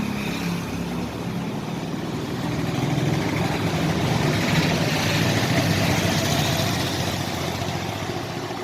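A motor vehicle passing by: engine and road noise growing louder to a peak about halfway through, then fading away.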